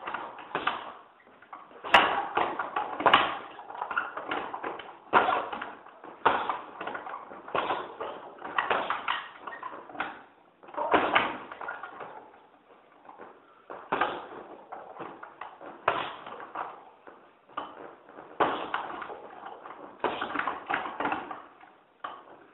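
Punches landing on a hanging heavy bag in quick flurries of several thuds, a new flurry every second or two.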